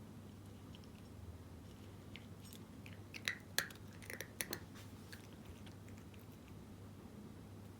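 A cat crunching dry kibble: a quick run of sharp crunches about halfway through, loudest near the start of the run.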